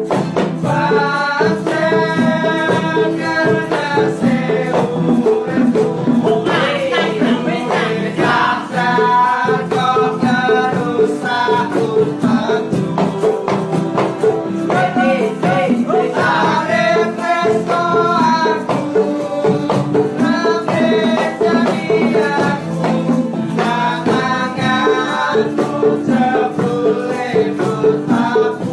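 Music: a singing voice in phrases over a steady percussion beat.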